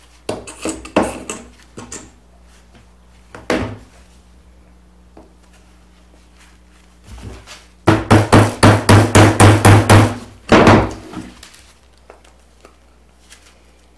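A few sharp snips of side cutters clipping nail heads. Then a fast run of about a dozen loud hammer blows on nails in a pine 2x4, about six a second, followed by one more knock.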